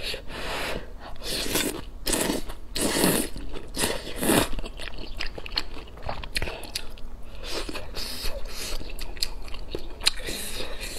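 Close-up eating sounds: thick noodles slurped in several loud bursts over the first four seconds or so, then chewing with quieter wet mouth sounds and light clicks of chopsticks against a metal bowl.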